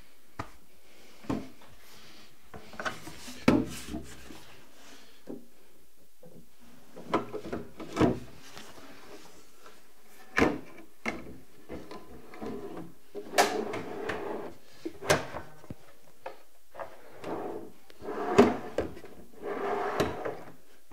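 Wooden drawer on new Rockler CenterLine soft-close metal drawer slides being pushed in and pulled out again and again. The slides rub and click, with sharp knocks at the ends of strokes. The slides are being run in: with each stroke the tabs that were bent out bend back and line up, so the drawer slides more easily.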